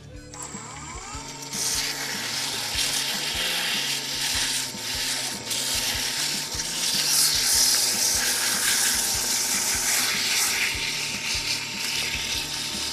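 Wood lathe spinning up, its motor whine rising briefly, then sandpaper held against the spinning wooden toy top, giving a steady sanding hiss over the lathe's hum.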